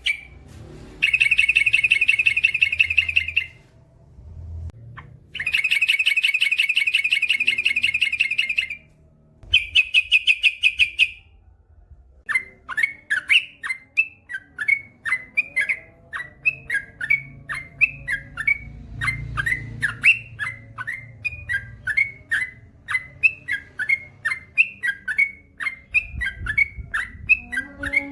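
Yellow-vented bulbul (trucukan) singing: three long, very fast rattling trills, then a steady run of short falling chirps, about two to three a second.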